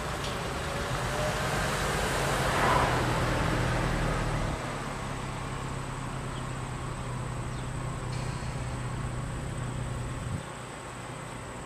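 A car passing, its noise swelling to a peak about three seconds in and then fading, over a steady low hum that cuts off abruptly near the end.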